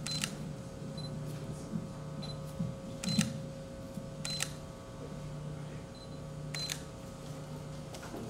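Camera shutter clicking four times over several seconds, with several short high beeps among the clicks, over a steady low hum.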